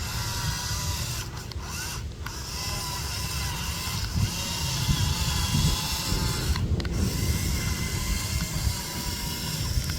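Toy excavator's small electric motors running with a steady whine over a grinding, clicking gear rattle. The whine drops out briefly a few times.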